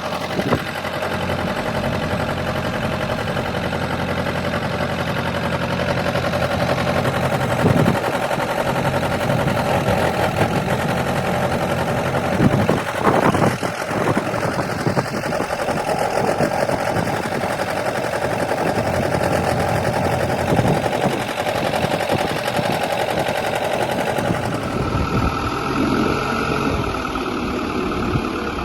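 Backhoe loader's diesel engine running steadily while it works a forklift attachment, with a few brief knocks at about 8 and 13 seconds in.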